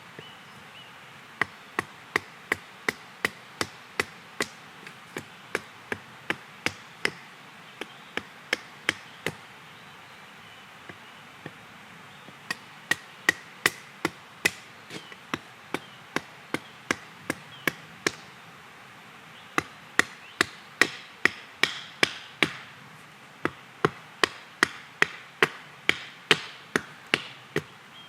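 Hand axe chopping wild cherry wood on a stump, hewing out spoon blanks: runs of sharp strikes, about two or three a second, with a pause of a few seconds partway through.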